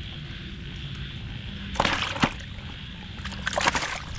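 Water splashing and sloshing in two short bursts, about two seconds in and again near the end, with a sharp knock in the first.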